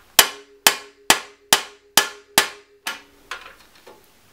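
Hammer striking a threaded bar used as a punch on a BB30 bearing removal tool, driving an old press-fit bottom bracket bearing out of a bike frame's shell. About seven sharp metallic blows, roughly two a second, each with a short ring, stopping about three seconds in.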